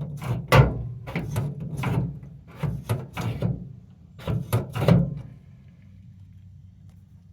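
Steel truck-bed toolbox latches and lid being worked: a run of metal clanks and rattles for about five seconds, then it stops. The owner thinks the latches need lubricating.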